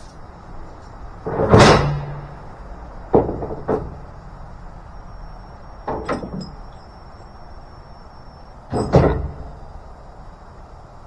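A series of heavy bangs and clanks at irregular intervals, about five in all, over a steady background hiss.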